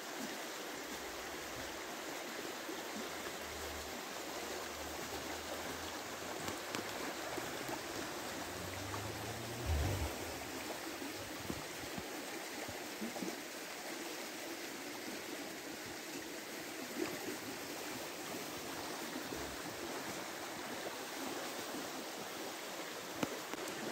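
Steady rush of a shallow river running over a stony bed, with light rain falling on the water. A brief low rumble comes about ten seconds in.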